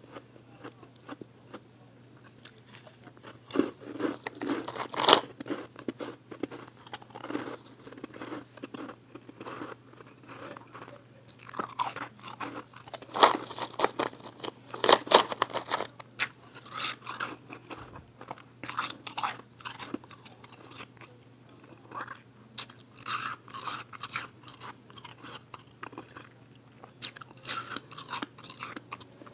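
Soft blended ice, pressed into small chunks, being bitten and chewed: crisp crunches in irregular bursts separated by short pauses, over a faint low hum.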